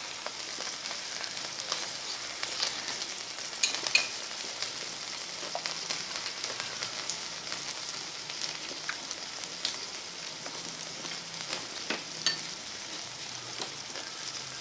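Beef, potato slices and green beans sizzling on a tabletop grill pan: a steady frying hiss with scattered pops and crackles, the sharpest about four seconds in and again about twelve seconds in.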